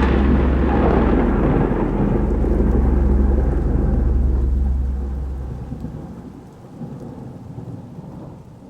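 Rolling thunder with rain, the rumble dying away over about six seconds to a faint hiss.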